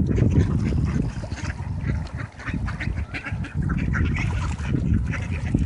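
Flock of mallard ducks quacking, many short calls overlapping, over a steady low rumble.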